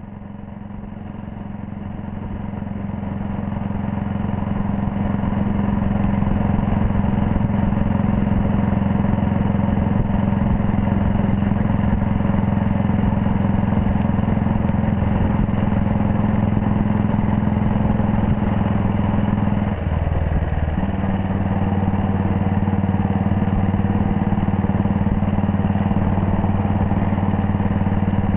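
1939 Red Panther Model 40's single-cylinder engine running steadily while the motorcycle is ridden. It rises in level over the first few seconds, and its note dips briefly about twenty seconds in.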